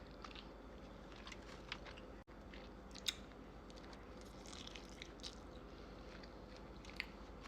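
A person chewing food close to the microphone: quiet wet mouth smacks and small crunches at irregular intervals, one sharper smack about three seconds in.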